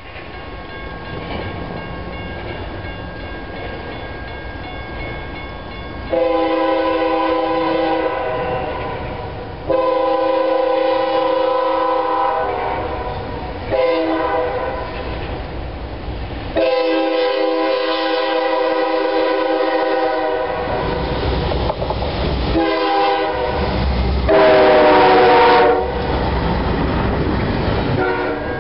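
Freight locomotive's multi-note air horn sounding the grade-crossing signal as the westbound intermodal train approaches: long, long, short, long. Two more blasts follow, the last and loudest dropping in pitch as the locomotive passes, then the rumble and clatter of the double-stack well cars going by.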